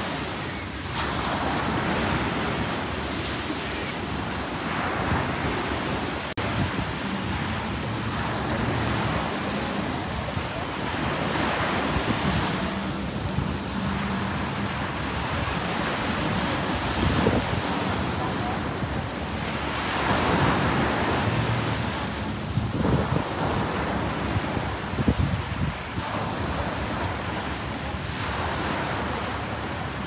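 Waves breaking and washing in on the shore, swelling and easing every few seconds, with wind buffeting the microphone.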